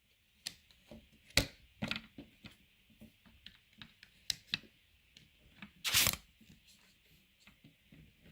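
Irregular clicks and knocks of plastic anatomy-model pieces being handled and fitted together, the sharpest knock about a second and a half in, and a short scraping rustle about six seconds in.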